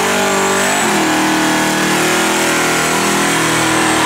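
Twin-turbo LS V8 of a box Chevy Caprice held at high revs during a burnout, its rear tyres spinning and smoking. The engine note dips briefly about a second in, then holds high and steady.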